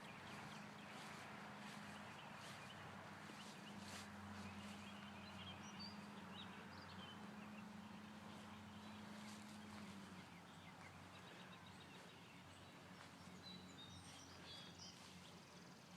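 Quiet outdoor ambience: a faint low steady hum that fades out about ten seconds in, with a few faint, high, short bird chirps.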